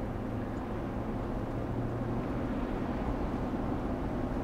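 GMC Yukon's V8 engine and tyres on the road: a steady low drone from the truck driving at an even speed.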